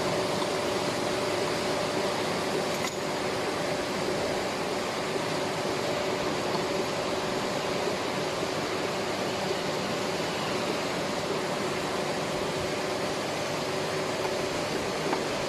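Steady hum of running machinery: an even hiss with two held tones, unchanging throughout, and a faint click about three seconds in.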